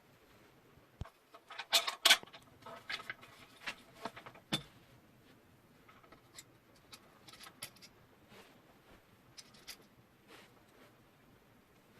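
Handling noises of a construction floodlight and its parts being unpacked: scattered clicks, knocks and light rattles, with a burst of louder clattering about two seconds in and another knock a little later.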